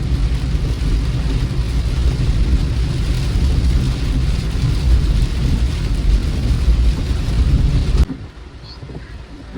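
Car cabin noise while driving in rain: a steady low rumble of road and engine with a hiss of rain over it. About eight seconds in it cuts off abruptly to a much quieter cabin hum.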